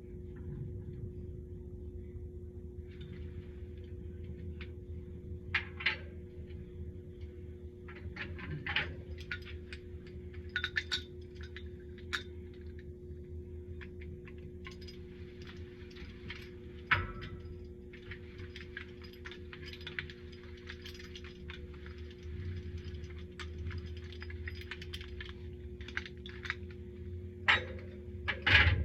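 Scattered light metallic clicks, clinks and knocks of copper pipe fittings and tools being handled, irregular and a few seconds apart, over a steady low hum.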